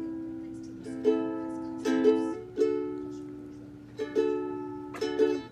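Music of strummed plucked-string chords, a new chord about every second, each ringing out and fading before the next.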